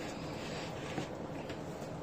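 Potato wedges coated in oil and seasoning being tossed by hand in a plastic bowl: soft squishing with a couple of light clicks, over a steady room hum.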